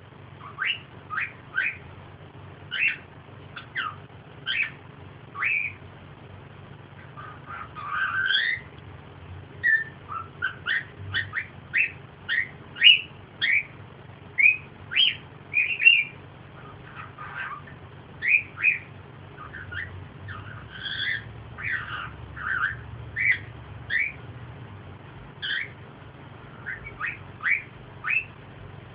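A small pet animal making many short, high chirps and squeaks, some sliding up or down in pitch, in irregular runs throughout.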